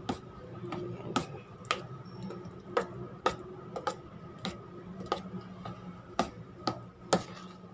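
A spoon stirring a thick batter in a stainless steel bowl, knocking against the metal side about twice a second in an irregular rhythm, over a faint steady hum.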